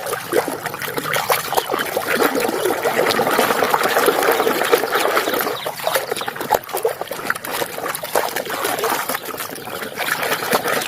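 Water trickling and splashing over a muddy toy helicopter as it is washed, with many small clicks mixed in.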